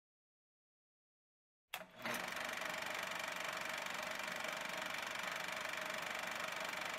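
Old film projector running: a steady mechanical whirr and clatter with hiss, starting with a click about two seconds in after silence.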